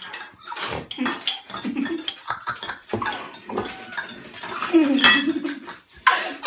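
Metal forks, held in the mouth, clinking and scraping against ceramic plates as raw eggs are beaten, with vocal sounds mixed in and a man laughing near the end.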